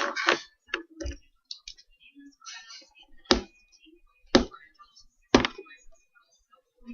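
Trading card box and its packaging being handled on a table: light rustling and clicks, then three sharp taps about a second apart.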